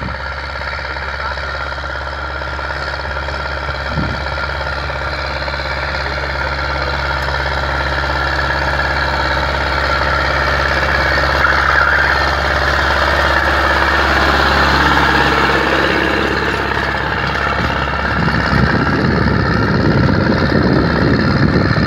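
Ursus C-360 tractor's four-cylinder diesel engine running under load while pulling a cultivator through the soil, getting louder as the tractor comes closer. Near the end the steady engine note gives way to a rougher, noisier rumble.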